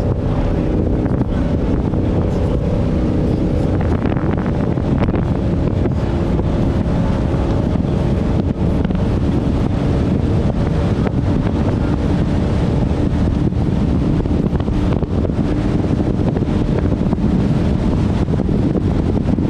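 Inboard engine of a 28-foot Nordic Heat V-hull powerboat running at a steady high-speed cruise, a constant drone, with wind buffeting the microphone and water rushing along the hull.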